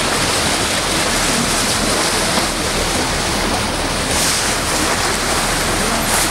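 Steady rush of seawater breaking along a moving boat's bow, with wind noise on the microphone.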